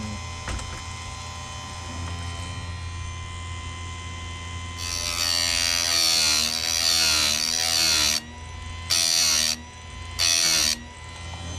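Electric bench-mounted chainsaw chain sharpener running with a steady hum, then its grinding wheel grinding the cutter teeth of a saw chain: one long grind of about three seconds past the middle, then two short grinds near the end.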